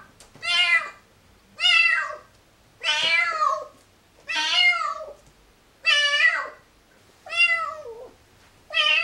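Siamese cat meowing loudly over and over: about seven long meows, one every second and a half or so, each rising and then falling in pitch.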